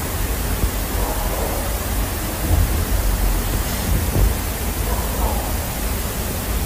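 Steady, even hiss-like noise, much like rain or static, with faint voices under it now and then.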